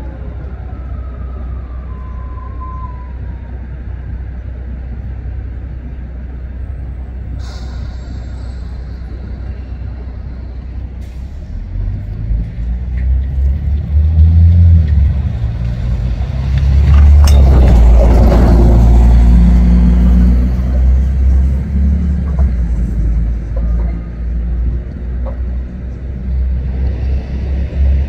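Bombardier TVR guided tram-bus rolling slowly forward as its guide roller drops onto the central rail; its low motor drone swells about halfway through and is loudest just past the middle, over a steady street rumble.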